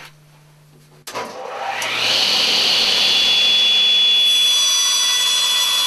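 Table saw switched on about a second in, its motor whine rising as the blade spins up, then running steadily at full speed without cutting anything.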